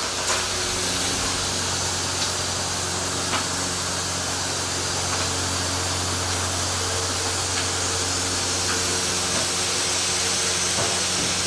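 Steady hissing sizzle of seasoned jerk chicken cooking on the grill, over a low steady hum, with a few faint clicks.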